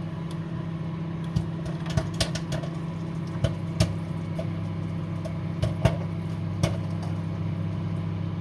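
Microwave oven running with a steady hum while a bag of butter-flavour microwave popcorn pops inside, sharp single pops coming irregularly, roughly one a second: the early stage of popping, before the pops run together.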